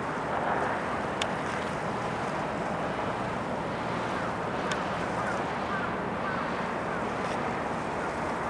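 Wind buffeting the microphone over the wash of water at the shore while a ship goes by, a steady rushing noise. Two sharp clicks cut through it, about a second in and again near the middle.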